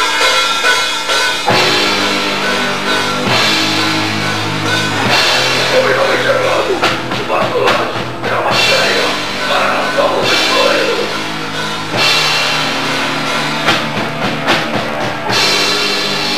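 Hardcore punk band playing live: distorted electric guitar, bass and drum kit, with shouted vocals through the middle, recorded on a VHS camcorder.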